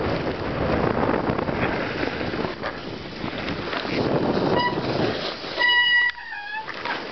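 Wind buffeting the microphone during a ride in a snowstorm. A short beep about four and a half seconds in is followed by a louder, horn-like tone lasting about a second, which bends down in pitch at its end.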